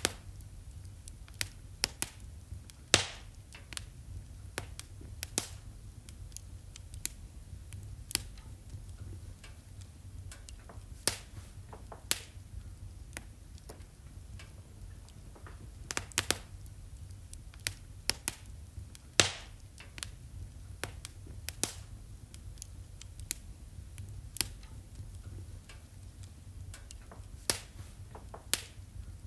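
Wood fire crackling in a fireplace: irregular sharp pops and snaps, a few of them louder, over a low steady rumble.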